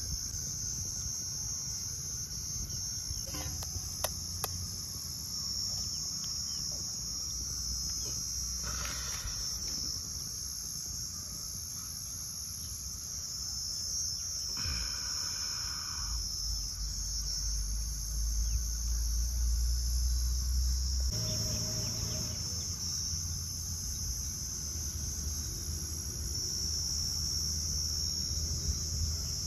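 Steady, high-pitched insect chirring, like a chorus of crickets, runs throughout. A few light clicks come around the fourth second, and a low rumble rises for several seconds past the middle.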